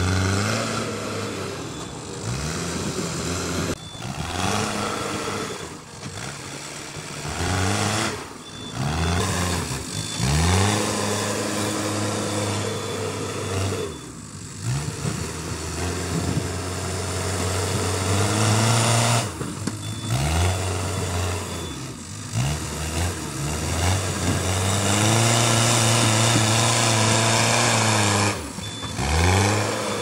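Mahindra backhoe loader's diesel engine working as the machine pushes loose soil with its front bucket, its speed rising and falling again and again as the throttle is worked.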